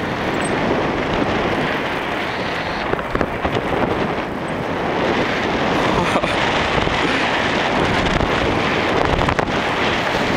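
Wind rushing hard over the camera microphone as a tandem paraglider runs off the slope and lifts into flight, a steady, loud buffeting with no letup.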